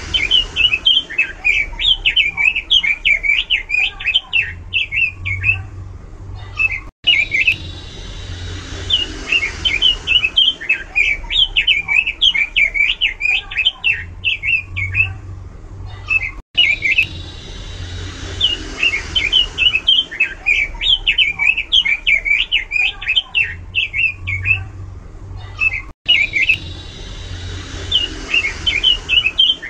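Pekin robin (red-billed leiothrix) singing loudly, in runs of quick, varied warbling notes of about five seconds each, three times over with a short break between runs.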